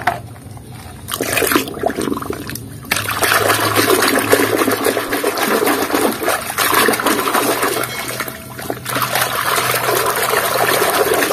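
Muddy water sloshing and splashing as a muddy plastic toy vehicle is swished around by hand in a basin. A few small splashes and drips at first, then continuous sloshing from about three seconds in, easing briefly past the middle.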